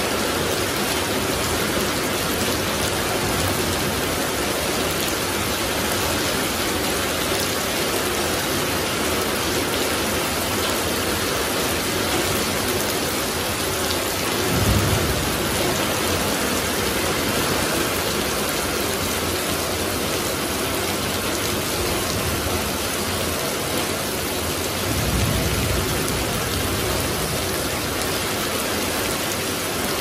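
Heavy rain pouring steadily onto leaves and a puddled paved lane. There are two brief low rumbles, one midway and one about ten seconds later.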